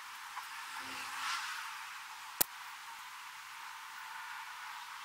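A single sharp crack of a shot from a .177 Zbroia Hortitsia pre-charged pneumatic air rifle about two and a half seconds in, over a steady hiss.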